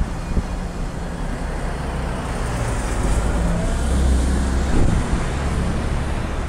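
Low, steady engine rumble that swells a little about halfway through.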